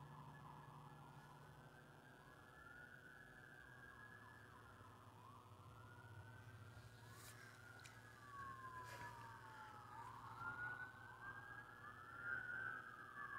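Several faint emergency-vehicle sirens wailing at once, their slow rising and falling tones overlapping out of step, growing louder near the end.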